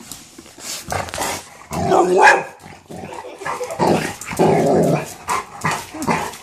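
Golden retriever barking and growling in a string of bursts of varying length.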